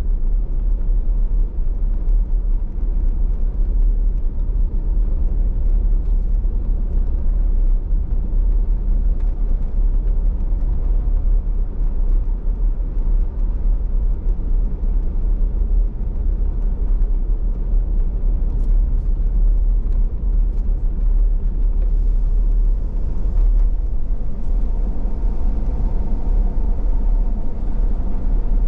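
Car driving along a road: a steady low rumble of road and engine noise, with a faint higher whine joining near the end.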